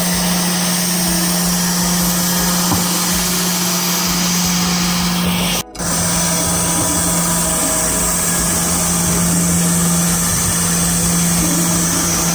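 Band sawmill running: a steady machine hum with an even rushing noise over it, broken by a split-second gap about halfway through.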